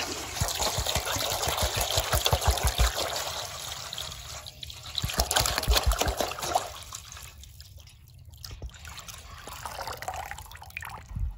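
Water poured from a jug into a stainless steel bowl, splashing and gurgling against the metal. The pour thins and dies away a little past halfway, leaving only faint drips and sloshing.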